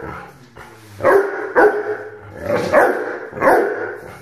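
An eight-month-old Rhodesian Ridgeback puppy barking: a pause of about a second, then about five loud, sharp barks.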